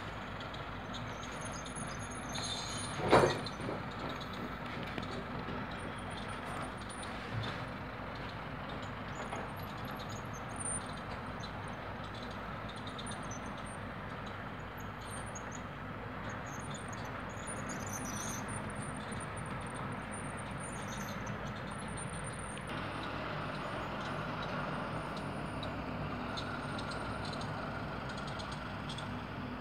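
HO-scale model diesel train running on layout track: a steady rumble of motor and wheels, with faint high chirps over it. One sharp knock about three seconds in.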